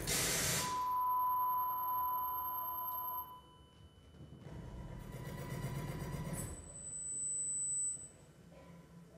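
Electronic music score made of tones and noise: a sharp hissing hit opens into a steady beep-like tone held for about three seconds, then a swelling hiss that cuts off suddenly, followed by a thin, very high tone that stops near the end.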